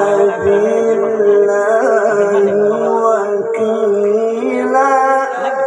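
A man's voice in melodic Quran recitation, drawing out one long phrase with wavering ornaments and a few shifts of pitch, amplified through a stage loudspeaker system.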